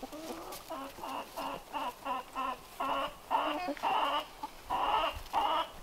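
A flock of laying hens clucking, first a quick run of short clucks, then longer drawn-out calls.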